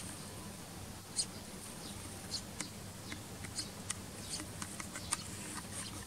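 Eurasian tree sparrow chirping: short, high peeps scattered at irregular intervals, over a faint steady low hum.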